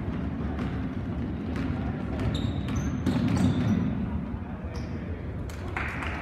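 Basketball dribbling and players' sneakers squeaking on a hardwood gym court, with a few short high squeaks around the middle, over murmuring voices in the gym.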